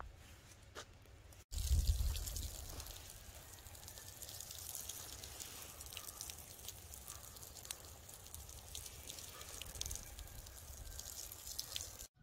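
Water spraying in a thin jet from a nozzle on a tee fitting of a black sprinkler hose, a steady hiss with light spattering, starting about a second and a half in with a low rumble. The hose is being test-run to check that every nozzle sprays before it is hung from a greenhouse ceiling.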